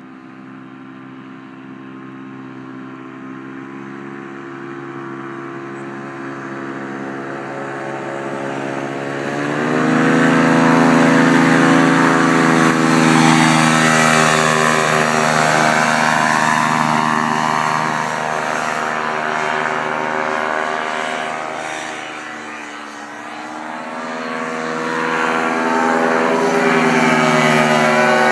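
A paramotor's two-stroke engine and propeller drone steadily. The sound grows louder as it flies in from a distance and passes close by about ten seconds in, with the pitch bending as it goes by. It fades a little later on and grows loud again near the end.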